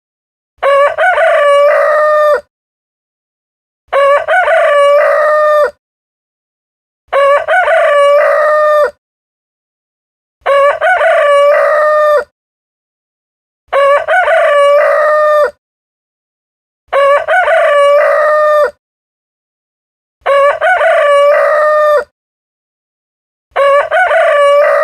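Rooster crowing cock-a-doodle-doo over and over, one crow just under two seconds long about every three seconds, with silence between. The crows are identical in shape, a single crow looped.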